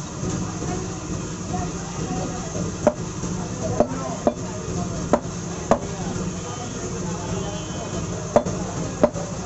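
Large butcher's knife chopping beef on a wooden log chopping block: about seven sharp, irregularly spaced knocks of the blade into the wood, starting about three seconds in, over steady background noise.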